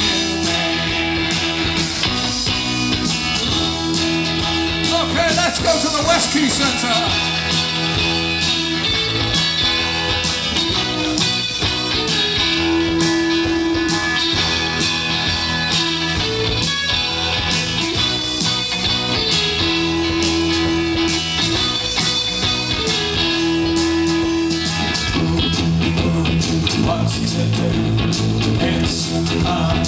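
Live rock band playing an instrumental passage: electric guitar and bass guitar, with held guitar notes recurring every few seconds over a steady beat.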